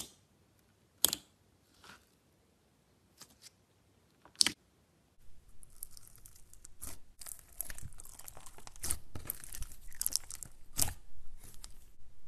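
Clear blue slime full of small beads being worked by hand: a few separate sharp pops in the first few seconds as a finger pokes it, then from about five seconds in a dense, continuous crackle and crunch as the slime is pressed and squeezed.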